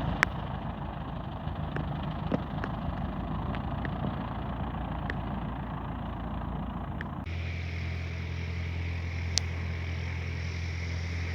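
Light aircraft's piston engine and propeller running steadily, with a few light clicks over it. About seven seconds in the sound changes abruptly to a steadier, lower hum.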